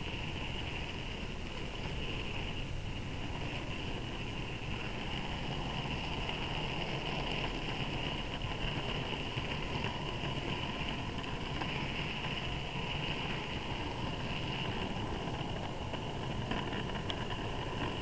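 Model Class 08 diesel shunter hauling a transfer freight along the track: a steady high whine from its small electric motor and gears over the rumble of wagon wheels on the rails, heard close up from on board the train.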